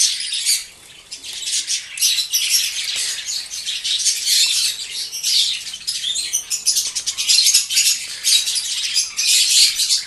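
A flock of budgerigars in a breeding colony, many chirping and chattering at once in a dense, continuous high twitter. It dips briefly about a second in.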